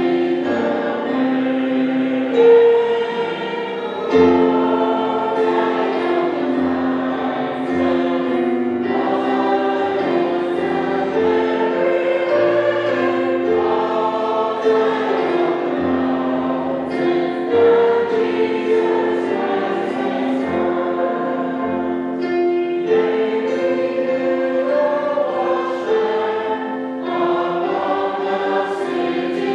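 Choir singing a slow hymn, its notes held long and moving together from chord to chord.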